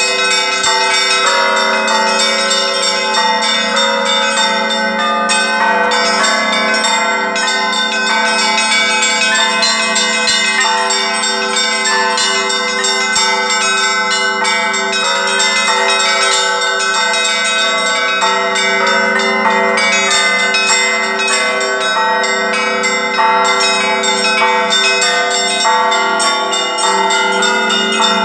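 Russian Orthodox church bells ringing: many bells of different pitches struck in quick, overlapping strokes, making a steady, unbroken peal.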